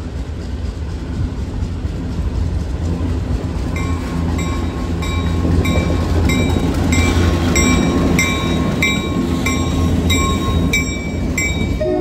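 RS3M diesel locomotive running, its engine rumble growing louder toward the middle as it draws near. From about four seconds in, a bell dings about twice a second.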